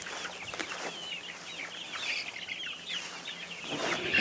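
A flock of young chickens peeping steadily, many short high chirps overlapping, a number of them falling in pitch. A louder brief rustle comes near the end.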